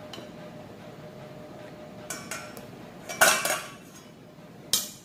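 Spatula scraping and tapping against a salad bowl as salad is served onto a plate: a few light clicks about two seconds in, a louder scraping clatter a little after three seconds, and one sharp knock near the end.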